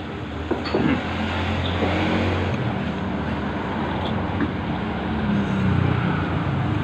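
Road traffic going past: a steady engine rumble, with a vehicle passing louder about a second in.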